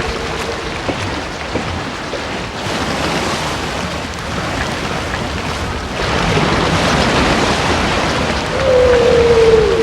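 Humpback whale call recorded underwater: a steady hiss of sea noise, then near the end a held moan that dips slightly in pitch as it ends.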